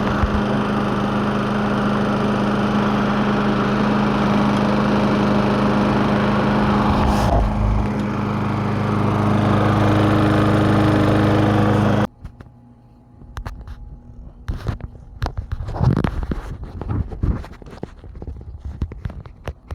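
Small lawn mower engine running steadily, with a brief change in its note about seven seconds in. It shuts off abruptly about twelve seconds in, followed by scattered clicks and knocks of handling.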